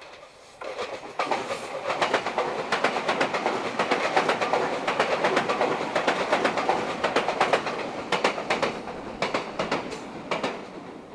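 Meitetsu eight-car electric express train passing, its wheels clattering over rail joints in many quick clicks. It swells up about a second in and fades near the end.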